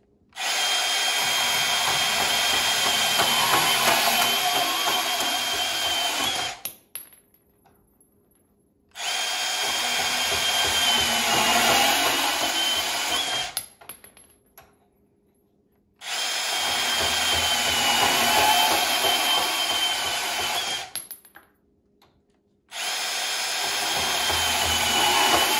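Milwaukee M18 FUEL brushless compact cordless bandsaw cutting through 3/4-inch galvanized steel pipe: four cuts of about five seconds each, with a steady high whine over the blade's grinding, separated by short silences.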